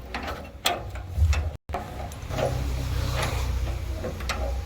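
Scattered metallic clicks and knocks of hand tools working on transformer bolts and fittings, over a steady low hum. The sound cuts out completely for an instant about one and a half seconds in.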